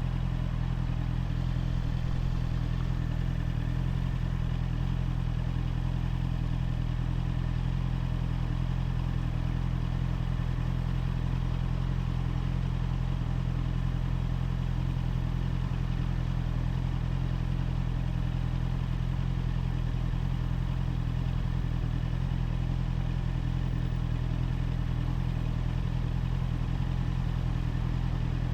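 Honda CBR650R's inline-four engine with its stock exhaust, running at a steady, unchanging engine speed with no revving.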